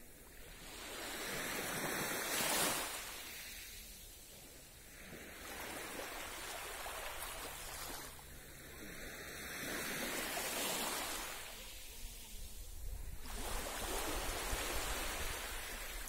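Small waves on a calm sea washing onto a sandy beach: a hiss of surf that swells and fades four times, about one wave every four seconds.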